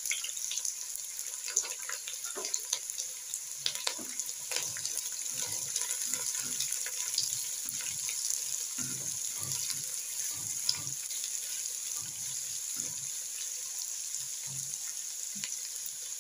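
Sliced red onions sizzling in hot cooking oil in a pan, a steady hiss, with scattered clicks and scrapes from a spatula stirring them.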